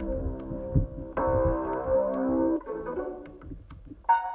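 Ringtones playing from the BrailleNote Touch's speaker: a synth-keyboard melody plays, then fades, and a new, brighter chiming tone starts near the end. Light clicks are heard now and then.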